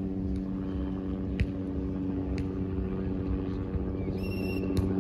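Steady low engine drone, with a few sharp taps and a short high tone near the end.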